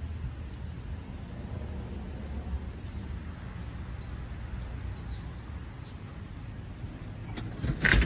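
Outdoor background of a steady low rumble with a few faint bird chirps. A sharp knock comes near the end.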